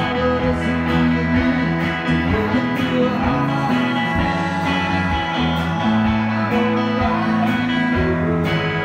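Live country-rock band playing, with strummed acoustic guitar and electric bass over a steady drum beat.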